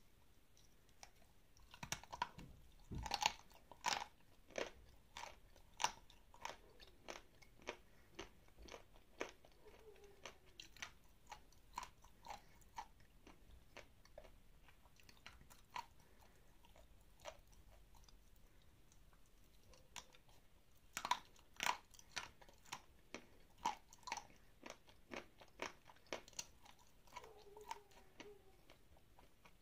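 Biting into and chewing dry, crumbly black edible clay, crunching. There are clusters of crunchy bites about two seconds in and again about twenty-one seconds in, with steady crunching chews about two a second between them.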